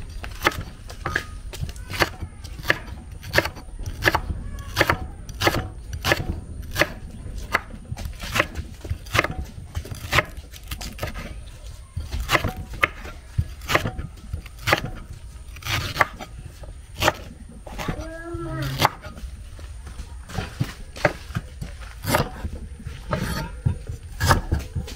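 Kitchen knife chopping green banana on a wooden cutting board: steady, evenly spaced chops about two a second. About two-thirds of the way through comes one short squeal that rises and falls.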